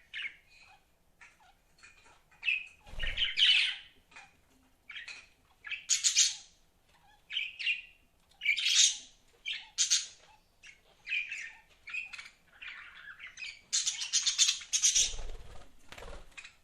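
Pet budgerigars chirping and chattering in irregular bursts of high, scratchy calls, with a couple of dull low thumps among them.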